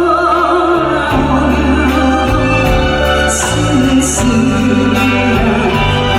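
A singer performing a Korean ballad over instrumental accompaniment with a steady bass line, holding a note with wide vibrato in the first second, with short cymbal strokes a little past halfway.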